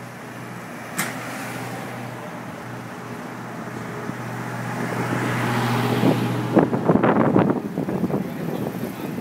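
City street traffic heard from a moving bicycle: a vehicle engine hums steadily, with a single sharp click about a second in. After about six and a half seconds the hum gives way to irregular knocks, rattles and wind noise.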